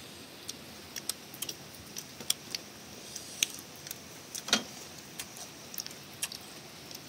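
Sparse light clicks and ticks of eating: a metal spoon working in a small ceramic bowl of chili dip and mouth sounds, with one louder click about four and a half seconds in.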